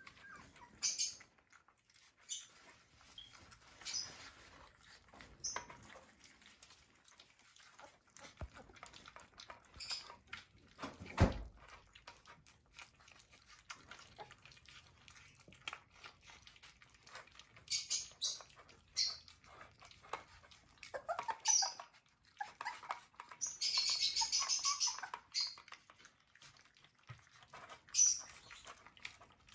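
Xoloitzcuintle puppies eating soft wet food from stainless steel bowls: scattered chewing and smacking, bowl clinks and short high squeaks. There is a louder thump about eleven seconds in and a longer high-pitched squeal of about two seconds past the twenty-second mark.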